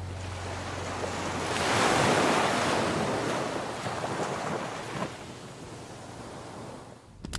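Sea waves breaking and washing up the sand, swelling about two seconds in and then fading away.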